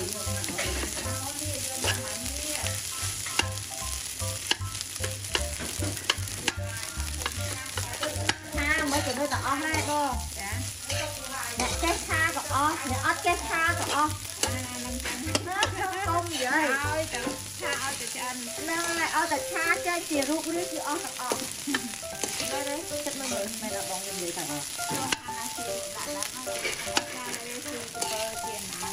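Fried rice with egg and sausage sizzling in a large wok while it is stirred and turned over with wooden and metal spatulas, the spatulas scraping against the pan.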